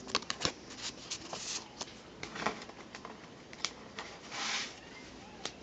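Trading cards and plastic card sleeves being handled: faint rustling with scattered light clicks and a short rub or slide about four and a half seconds in.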